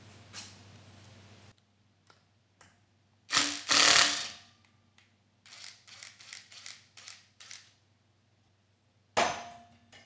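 Cordless impact wrench hammering at the generator rotor's through-bolt: one loud burst of about a second, then a string of short bursts. Near the end comes a single sharp hammer strike with a brief ringing note.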